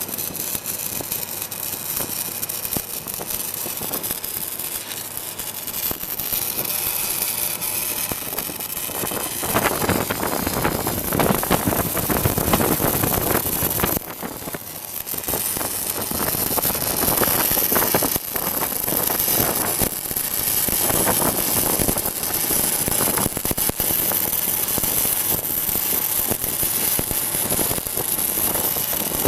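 Pipeline stick welding: the arc crackles and hisses steadily over the running engine of a welding machine. The arc sound dips briefly about halfway through, then carries on.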